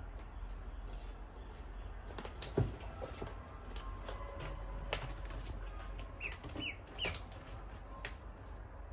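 A kitten's paws and claws tapping and scrabbling on a hard plastic storage box as it climbs onto it, with scattered sharp knocks, the loudest about two and a half seconds in. Three short, faint, high peeps from a duckling a little past the middle.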